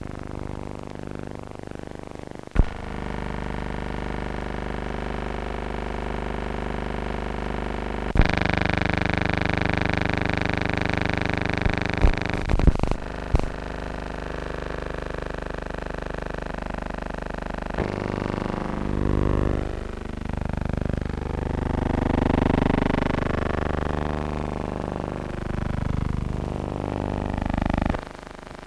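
Steady hum and hiss of an old optical film soundtrack, changing level abruptly at the splices, with a few sharp clicks in the middle. In the later part a softer, wavering sound rises and falls over the hum.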